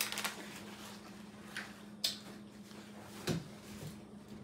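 Quiet eating and handling of food at a table: a few small clicks spread through, with a soft knock about three seconds in, over a faint steady hum.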